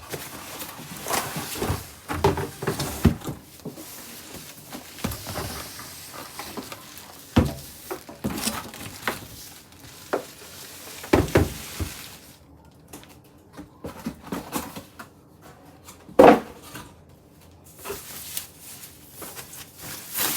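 Cardboard box and packaging being handled during unboxing: rustling, scraping and irregular knocks, with one sharp loud knock about 16 seconds in.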